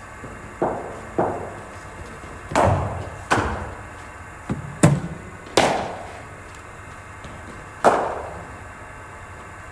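About eight sharp knocks at irregular intervals, two of them close together about halfway through, each with a short echo: cricket balls being struck and hitting hard surfaces in an indoor cricket hall.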